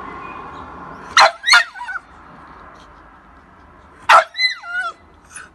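French Bulldog giving two short high barks about three seconds apart, each trailing off into a falling whine, fretting at being kept back from following its departing companion.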